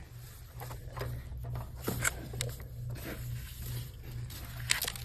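Mini Miller flexible-shaft cable being pulled through its housing, with scattered scrapes and clicks over a low hum that pulses about two to three times a second.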